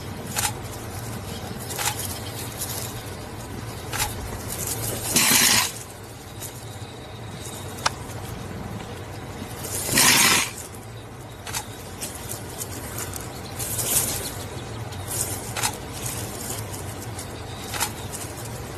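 Porcupine's raised quills rattling and rustling in sudden bursts as it swings and charges backward at a leopard, loudest about five seconds in and again about ten seconds in, with scattered sharp clicks. A steady low hum runs underneath.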